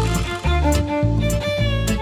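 Background music: a held, pitched melody line over a regularly pulsing bass beat.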